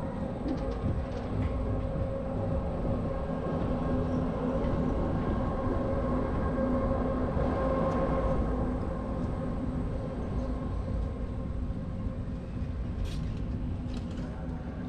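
A large vehicle engine running steadily: a low rumble with a constant hum over it, and a couple of short clicks near the end.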